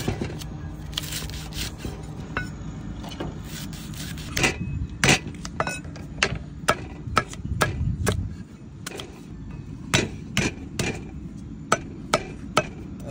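Heavy steel cleaver chopping lemongrass and fresh turmeric on a thick round wooden chopping block. Sharp, irregular knocks of the blade striking the wood come about one or two a second.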